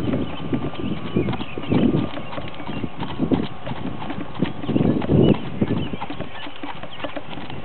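Hoofbeats of a Tennessee Walking Horse gaiting under a rider on a dirt and gravel track: a quick, even run of hoof strikes. A few louder low rushes of sound come about 2, 3 and 5 seconds in.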